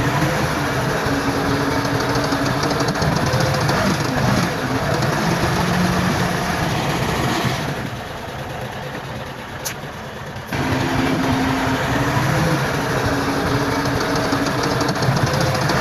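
Heavy diesel engines of earthmoving machinery running steadily. The sound drops to a quieter stretch a little past halfway through, then comes back abruptly at full level.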